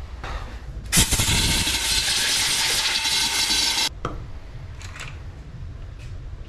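Loud, steady hiss of a pressurised jet in a suspension workshop, starting sharply about a second in and cutting off abruptly about three seconds later, with a fainter short hiss just before it and a couple of brief puffs afterwards.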